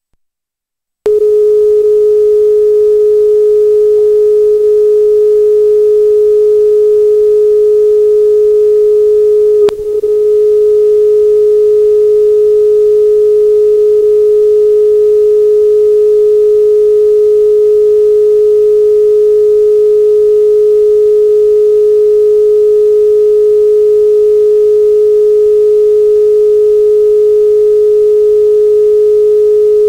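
Broadcast line-up test tone: a single steady pitch sent with colour bars so that receiving sites can check that the feed's sound is coming through. It starts about a second in and has a brief click and dropout about ten seconds in.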